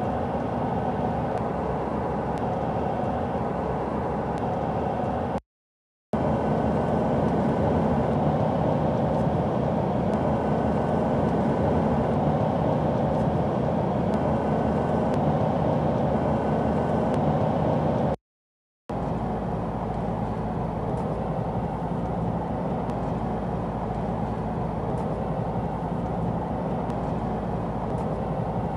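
Steady road and engine noise inside the cabin of a sound-deadened Mazda BT-50 ute cruising at highway speeds, with two brief silent breaks where one recording cuts to the next. The stretch in the middle, at 100 km/h, is a little louder, and the last stretch, at 70 km/h, a little quieter.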